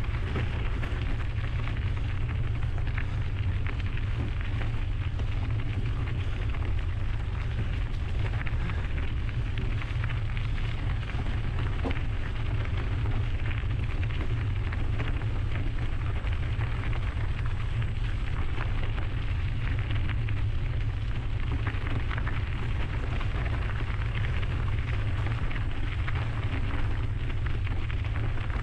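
Mountain bike tyres crackling over the trail under a steady rush of wind on the GoPro's microphone.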